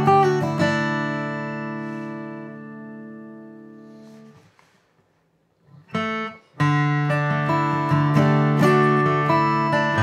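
Taylor 322ce 12-fret acoustic guitar being played: a chord is struck and left to ring, fading away over about four seconds. After a moment of near silence and a short sound, the playing picks up again with a steady run of chords and notes.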